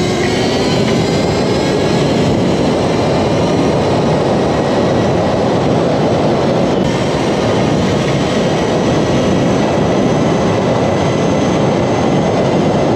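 Loud, steady wind rush and road noise as a Sur-Ron Ultra Bee electric dirt bike runs flat out near its top speed, with a faint whine from the electric motor under it.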